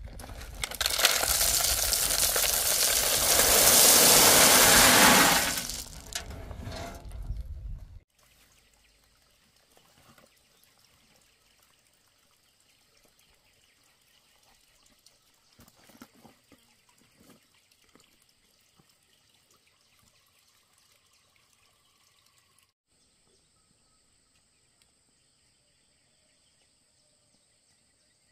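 Crushed stone tipped out of a wheelbarrow: a loud rush of tumbling gravel for about five seconds that tails off, followed by a long quiet stretch with a few faint scattered sounds and a thin steady high tone near the end.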